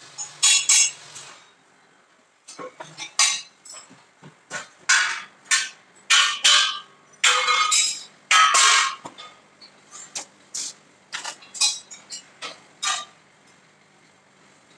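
Steel sheet and metal parts clanging and banging irregularly: loud sharp metallic impacts with a short ring, several in quick clusters over the first nine seconds, then lighter clicks and taps.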